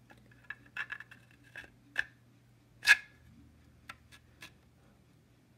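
Raspberry Pi 3 circuit board being pushed into a tight-fitting 3D-printed plastic sleeve case: a series of small clicks and scrapes of plastic against the board and its metal connectors, the loudest about three seconds in.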